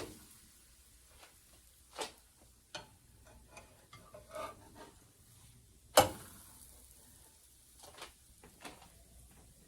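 Pancake cooking sounds: a faint sizzle under scattered clicks and knocks of a utensil against a pan, with one sharp loud knock about six seconds in.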